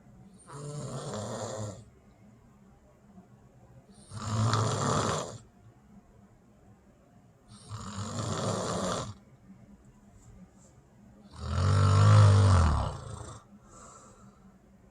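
A person snoring: four loud snores about four seconds apart, each lasting one to two seconds, the last one the loudest and longest, followed by a faint short one.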